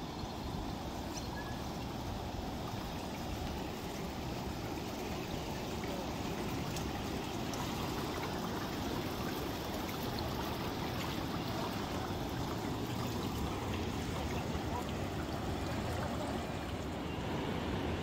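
Steady rush of river water spilling over a low concrete weir.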